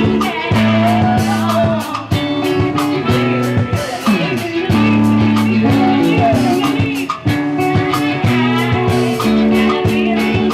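Live band jamming: guitar and a drum kit keeping a steady groove under held low notes, with a voice singing ad-lib lines over the top.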